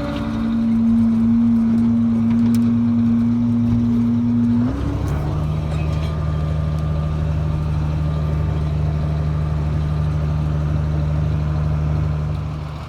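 Tractor engine running steadily under load, its note dropping to a lower steady pitch about five seconds in.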